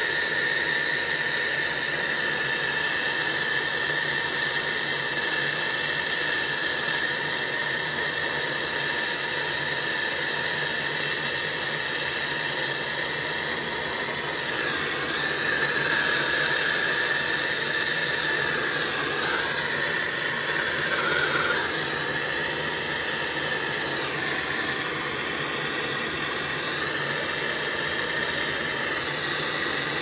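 Hose-fed gas torch flame running steadily on a copper pipe joint, heating it for soldering: a constant hiss with a whistling tone whose pitch shifts a few times in the second half as the flame moves on the pipe.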